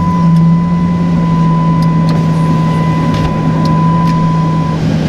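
2008 Dodge Ram 1500's air-conditioning blower running, a steady rush of air from the dash vents with a steady low hum. A thin high steady tone runs alongside and stops near the end.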